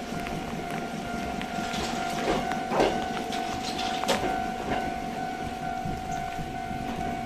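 A Choshi Electric Railway train pulling away along the track, its wheels clicking sharply over rail joints three or four times, over a steady hum and a light hiss of rain.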